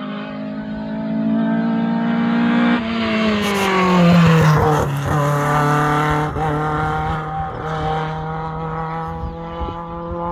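Hillclimb race car engine running hard as the car climbs past, its pitch dropping as it goes by about three to four seconds in, then easing off as it pulls away up the hill.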